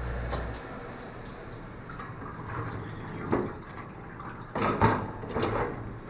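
Commercial hood-type dishwasher's motor hum cutting off under a second in, the end of its wash cycle. Then the stainless-steel hood is raised, with several metallic clunks and knocks, the loudest a little before the end.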